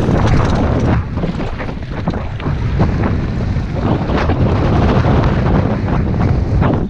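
Wind buffeting a helmet-mounted camera's microphone as a downhill mountain bike descends a dirt and rock trail at speed, with many small knocks and rattles from the tyres, chain and frame over the rough ground.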